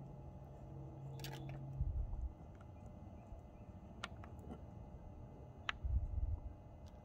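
Quiet handling noises from working a plastic welder and filler rod against a plastic part: a few sharp clicks and two dull bumps, over a low hum that stops about two seconds in.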